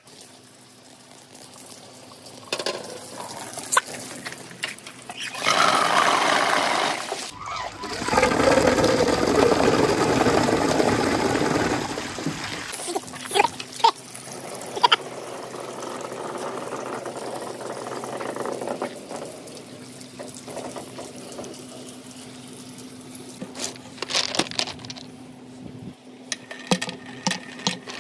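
Water running and splashing through a bamboo marble-run waterslide, loudest for several seconds in the first half, with scattered sharp clicks and knocks of marbles and billiard balls striking the bamboo.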